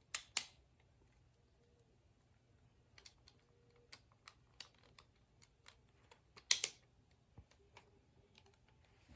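Sharp clicks and light taps of small plastic toy parts being handled and pushed together: a pair of louder clicks at the start and another about six and a half seconds in, with faint scattered ticks between.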